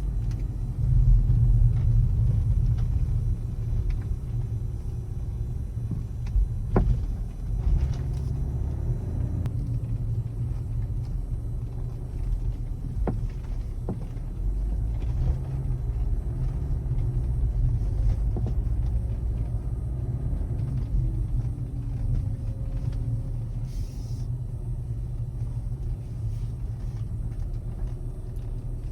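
BMW E61 5 Series Touring on the move: a steady low rumble with occasional sharp knocks, the knocking noise that the owner is recording.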